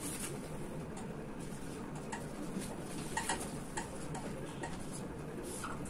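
Marker pen writing on a whiteboard: a scattering of short taps and scratchy strokes over low steady room noise.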